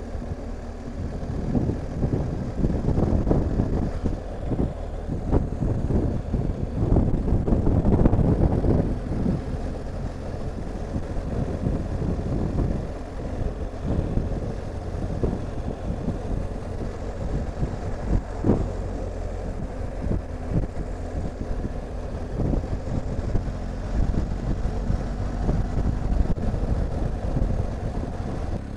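BMW R 1250 GS Adventure's boxer twin running while riding, a steady low engine note under gusty wind buffeting on the camera microphone; the buffeting is loudest about eight seconds in.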